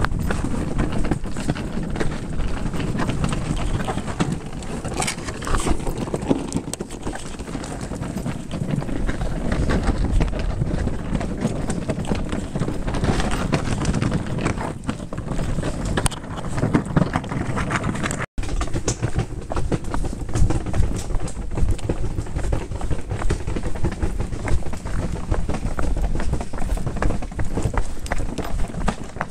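Walking with a handheld camera: footsteps and handling rub, with a steady rumbling clatter and many small knocks. The sound cuts out for an instant a little past the middle.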